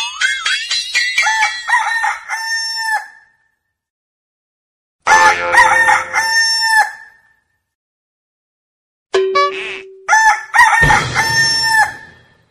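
A rooster crowing three times, each crow about two to three seconds long, with silence between them.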